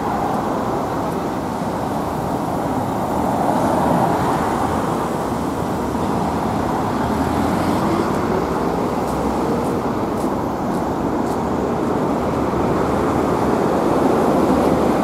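Steady road traffic noise from a busy city street, with one engine rising in pitch about halfway through.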